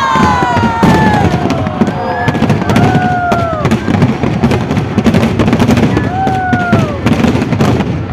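Fireworks show bursting: a dense run of bangs and crackles, with falling whistle-like tones gliding down over them at the start, around the middle and near the end.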